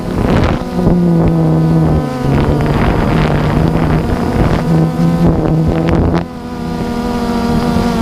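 DJI Phantom 2 quadcopter's motors and propellers buzzing steadily in flight, with wind buffeting the microphone. About six seconds in the buzz briefly dips and changes pitch as the motors change speed, and the gusting eases.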